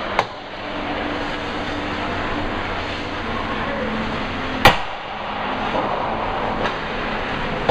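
Hockey game in a rink: a steady background din broken by sharp knocks from the play, one just after the start, the loudest a little past halfway, and fainter ones near the end.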